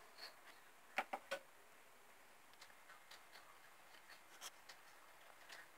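Near silence with a few faint clicks: a quick cluster of three about a second in, then scattered soft ticks.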